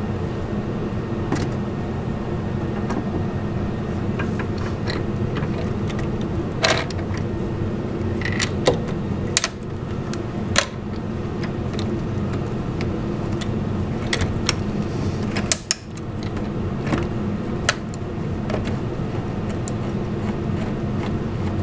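Scattered light metallic clicks and knocks as a TRZ manual brake master cylinder on its adapter plate is handled and set against a car's firewall, over a steady low droning hum.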